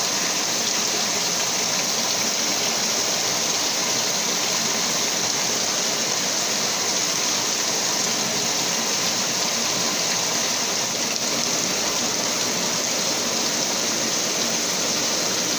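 Steady rush of flowing river water, an even unbroken hiss.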